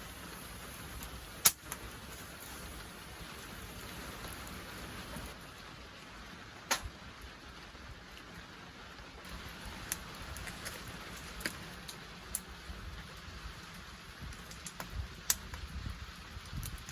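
Wood fire crackling in a Picogrill-style folding fire stand: a steady hiss with sharp, scattered pops, the loudest about a second and a half in.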